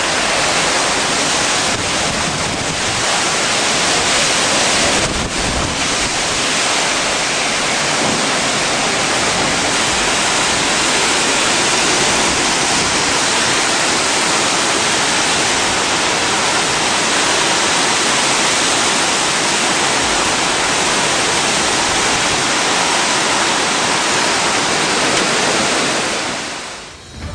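Typhoon wind and driving rain, a loud steady rushing noise that fades out near the end.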